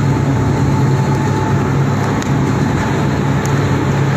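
Plastic film recycling washing line machinery running steadily: a constant low motor hum over dense, even mechanical noise.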